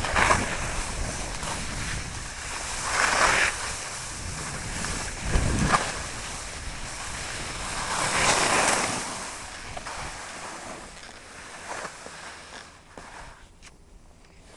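Skis scraping over snow on a descent, with several swelling hisses as the skis turn and wind buffeting the microphone; it grows quieter over the last few seconds.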